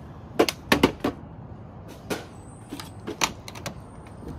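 Irregular sharp knocks and taps on wooden deck boards. A quick cluster of four loud ones comes about half a second in, then softer scattered ones follow.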